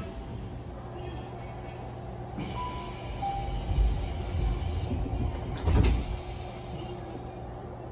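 Inside a Tokyu 7000-series commuter train at a stop: a two-note falling door chime, then the sliding passenger doors close with a heavy thud about six seconds in, over the car's steady low hum.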